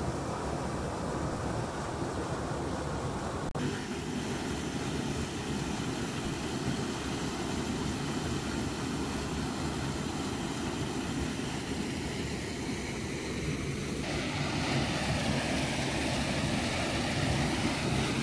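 Water pouring from a concrete drain outfall into a shallow river: a steady rushing noise, strongest low down. It changes abruptly twice, about three and a half seconds in and again near fourteen seconds.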